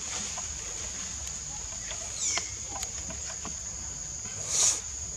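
Steady high-pitched drone of forest insects, with a short chirping call about two seconds in and a brief louder burst near the end.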